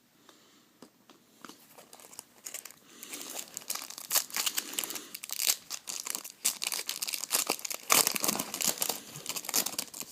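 A baseball card pack's wrapper being crinkled and torn open, with dense irregular crackling that builds and is loudest in the second half.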